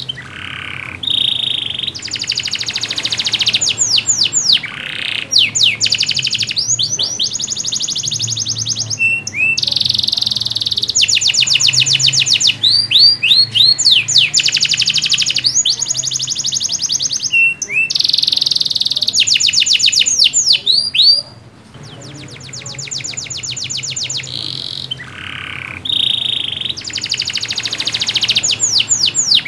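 Domestic canary in full, continuous song: long runs of very fast trills and rolls, each followed by quick rising whistled notes, with short breaks between phrases.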